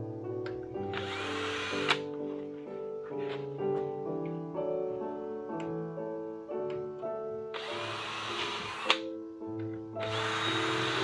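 Cordless drill boring into a metal plate in three short bursts: about a second long just after the start, about a second and a half near 8 s, and another starting near the end. The first two end with a sharp click. Classical background music plays throughout.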